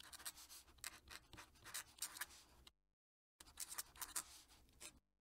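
Fountain pen nib scratching across paper in quick, faint handwriting strokes, with a short pause about halfway through.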